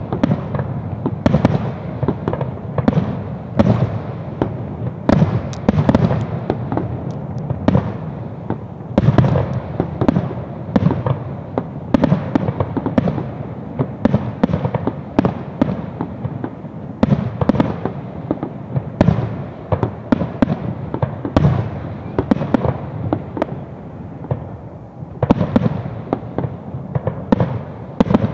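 Fireworks display: aerial shells bursting in quick succession, a dense run of bangs and booms with a short lull near the end before they pick up again.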